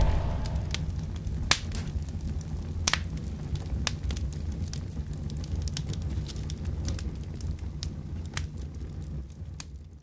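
A fireball's low rumbling burn dying away, with scattered sharp crackles and pops. It fades slowly and cuts off at the end.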